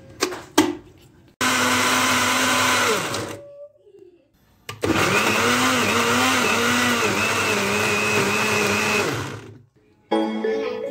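Electric kitchen blender grinding a coarse green chutney of mint, coriander, tomato, onion and chillies with a little water, in two runs: a short one of about two seconds, then a longer one of about five, each winding down when switched off. A few sharp clicks come before the first run and one just before the second.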